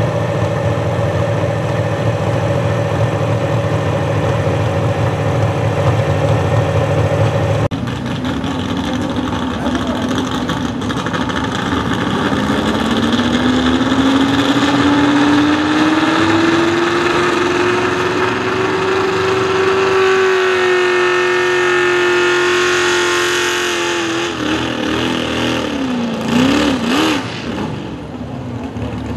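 Pro stock 4x4 pulling truck engine running steadily at a fast idle; after a cut, a second pulling truck's engine revs up in a long steady climb, holds high for a few seconds, then surges up and down before dropping back near the end.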